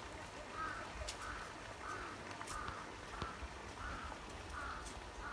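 A bird calling over and over in an even series, about two short, rough calls a second.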